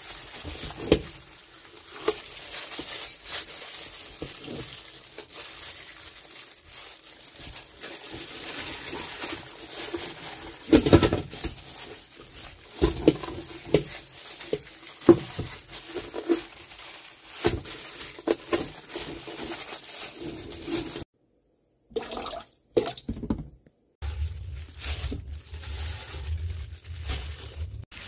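Thawed chicken thigh meat handled with a thin plastic-gloved hand in a stainless steel bowl: wet squishing, plastic rustling and scattered clicks and knocks. The sound drops out briefly twice past the middle, and a low hum runs under the last few seconds.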